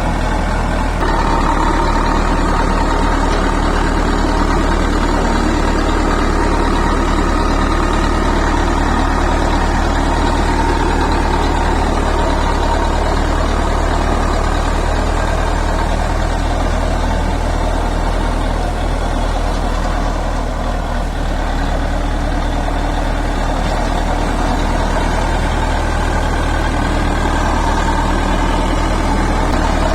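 Bulldozer's heavy diesel engine running steadily, picking up slightly about a second in.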